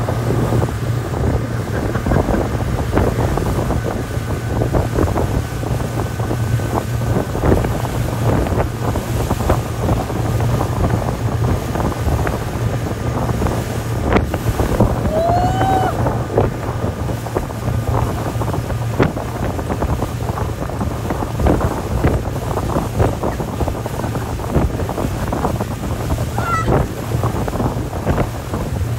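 Speedboat's outboard motor running steadily at speed, with wind buffeting the microphone and the wake rushing behind the boat.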